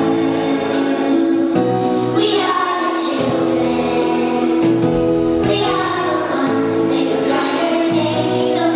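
A children's choir singing, with notes held for about a second each before moving to the next.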